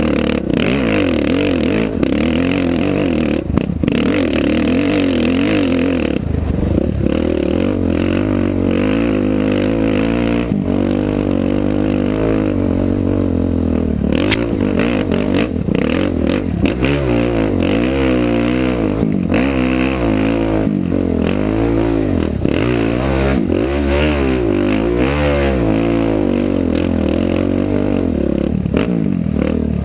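Off-road race vehicle's engine running hard, heard from onboard, its pitch rising and falling again and again as the throttle works, most clearly in the second half. Frequent rattles and knocks come through with it.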